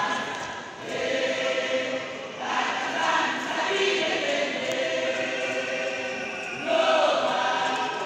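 A choir of many voices singing together, holding long notes, with fresh phrases starting about a second in, around two and a half seconds and again near seven seconds, where it grows louder.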